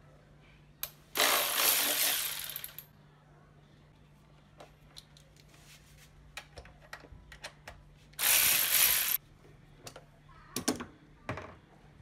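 A handheld cordless power driver running in two short bursts, about a second in for a second and a half and again past the two-thirds mark for about a second. Light clicks and clinks of tools and parts come in between.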